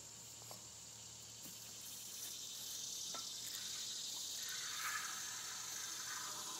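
Insects chirring steadily, with a high hiss that grows louder about two seconds in.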